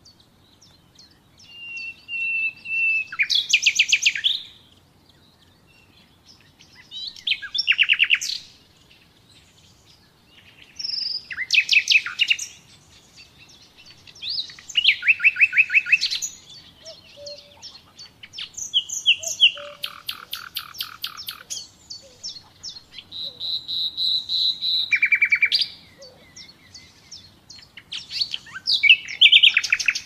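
Common nightingale singing: about seven separate phrases a few seconds apart, each a burst of fast repeated notes and trills, one built around a long, steady high whistle.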